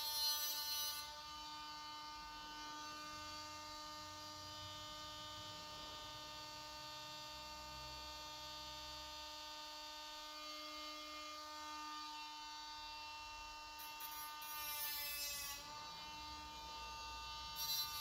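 A small handheld cordless power tool's electric motor running with a steady whine. About fifteen seconds in, its pitch dips and recovers with a burst of grinding noise as it meets the work, and a similar burst comes near the end.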